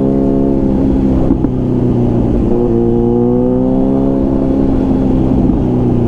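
Motorcycle engine running steadily at a fairly constant pitch that drifts slightly up and down, with a low rumble underneath.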